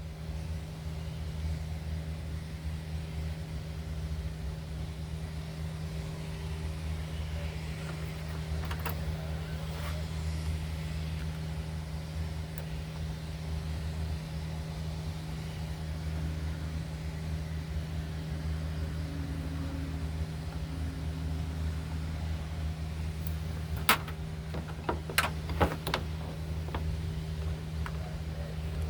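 A steady low hum throughout, with a few sharp clicks and knocks near the end.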